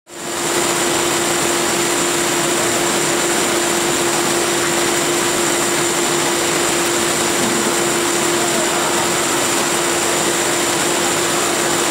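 Steady factory machinery noise, a constant hiss with a mid-pitched hum and a high whine running through it, fading in over the first half second.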